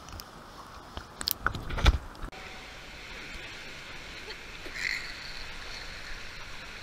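Pool water heard through a camera held underwater: crackling clicks and knocks, loudest a thump about two seconds in. The camera then comes up out of the water and the sound turns to a steady hiss of water lapping and splashing around swimmers, with a short splash a little before five seconds.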